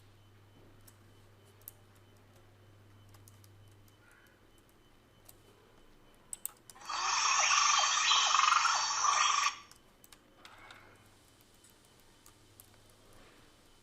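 A few faint clicks, then about seven seconds in a sound-effect clip plays loud for about two and a half seconds, starting and stopping abruptly.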